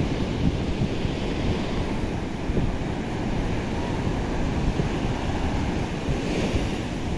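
Surf breaking and washing up a sandy beach in a steady rushing wash, with wind buffeting the microphone in low rumbling gusts.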